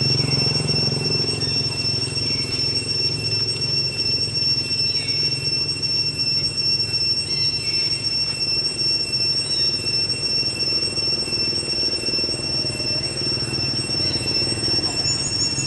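Steady high-pitched insect drone held throughout, over a low steady hum, with short falling chirps every few seconds.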